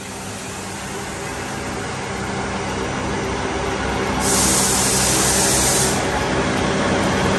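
A machine running with a steady hum of several even tones that grows gradually louder, and a loud burst of hiss from about four seconds in, lasting nearly two seconds.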